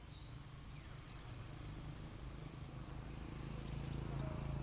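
Outdoor ambience: faint scattered bird chirps and insect sounds over a low rumble that grows louder toward the end.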